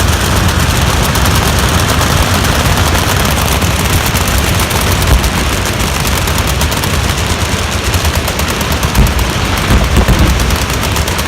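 Many machine guns firing at once: a dense, unbroken rattle of overlapping automatic fire, with a few louder reports standing out near the middle and toward the end.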